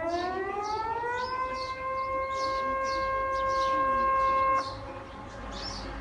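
Tsunami warning siren on a public warning loudspeaker: one wail that rises in pitch for about two seconds, holds a steady tone, and cuts off abruptly about four and a half seconds in. Birds chirp faintly behind it.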